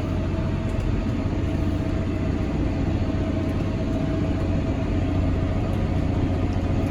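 Tractor engine running steadily under load while baling, heard from inside the cab, with a steady high whine over the low drone.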